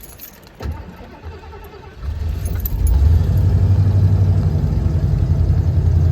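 Keys jangling and a knock, then a van's engine starts about two seconds in, rises and settles into a steady idle.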